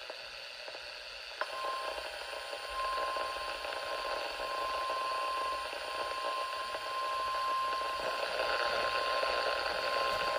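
NOAA Weather Radio warning alarm tone (1050 Hz) through a Midland weather radio's speaker: a second or so of radio hiss, a click, then one steady high tone held for about nine seconds. The tone marks a warning-level alert about to be read.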